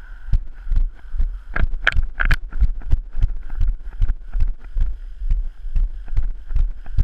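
Footsteps of a person walking briskly on a pavement, heard as a steady run of low thuds about two a second through a body-worn camera, with a few sharper clicks about two seconds in.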